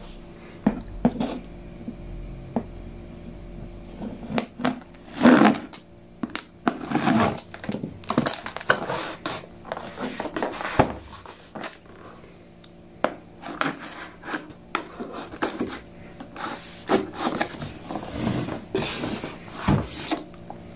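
Cardboard box being handled and turned over, giving irregular scrapes, taps and rustles of cardboard and packing tape, over a faint steady hum.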